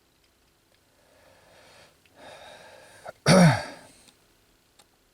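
A man breathing in, then letting out one loud sigh that falls in pitch, about three seconds in.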